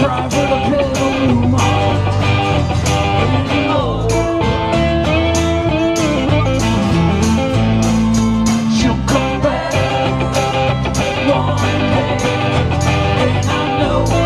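Live band playing a bluesy, country-style song: acoustic and electric guitars over a steady beat, with singing.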